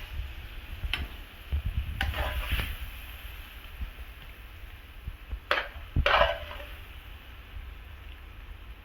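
A metal utensil scraping and clinking against a pan as the thick curry is served out, with a few sharp knocks and a faint sizzle, over a steady low rumble.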